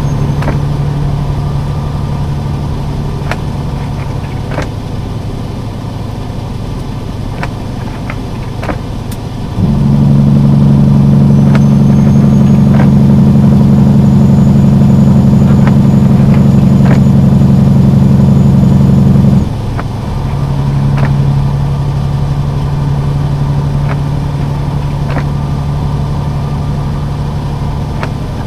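A vehicle engine running steadily, with scattered light ticks. About a third of the way in, the hum jumps to a much louder, steady level for about ten seconds, then drops back suddenly.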